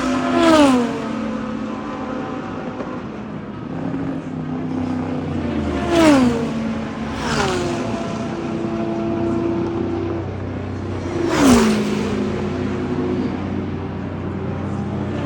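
Car engines: a steady engine hum broken by about four loud swells, each dropping steeply in pitch right after its peak.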